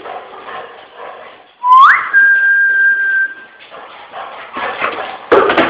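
A person whistles: one quick rising whistle held on a steady note for about a second and a half. A short, sharp, loud sound comes near the end.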